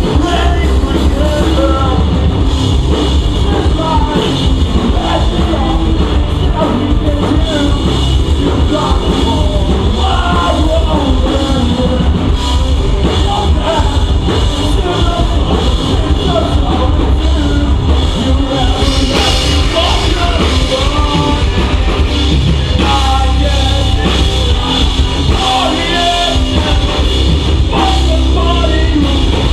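Pop punk band playing live: a rock song with a drum kit, loud amplified instruments and a singer's voice over them.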